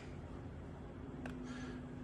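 Quiet background room tone with a faint click a little over a second in; the car's engine is not running.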